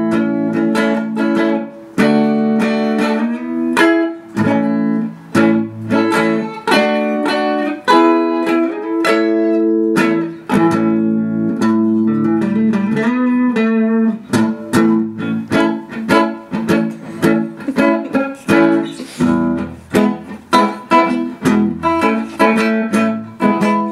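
Background music played on a plucked string instrument: a quick, even run of picked notes.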